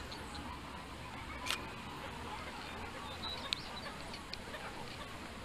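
Camera shutter clicking three times, the loudest about one and a half seconds in, over steady outdoor background noise with a few faint bird chirps.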